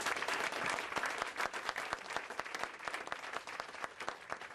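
Audience applauding at the end of a song, a dense patter of clapping that is loudest at the start and gradually tapers off.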